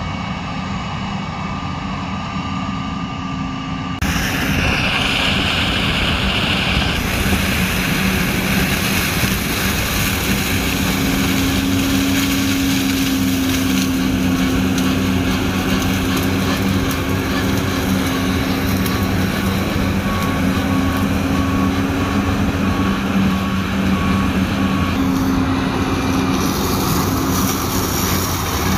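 New Holland CX6090 combine harvester running steadily while harvesting grain maize: a steady engine drone mixed with the noise of the threshing machinery and header. It becomes louder and closer about four seconds in.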